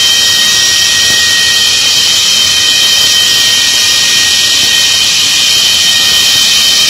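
MiG-23BN's Tumansky R-29B-300 turbojet running steadily during a ground engine test: a loud, even rush of jet noise with a steady high turbine whine over it.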